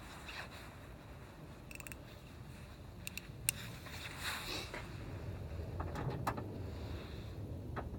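Faint scattered clicks and light knocks of a wrench and hands working at the liftgate's loose stud pin as its 10 mm nut is being tightened, over a low steady rumble.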